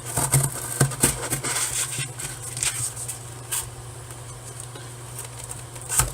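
Stainless steel lockback knife blade cutting through thick cardboard: a quick run of short scraping, crunching strokes in the first two seconds, then a few scattered strokes and one louder one near the end, over a steady low hum.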